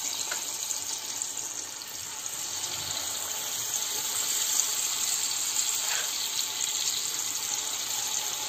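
Sweet-potato malpua batter frying in hot desi ghee in a kadai: a steady sizzling hiss that grows a little louder from about two seconds in.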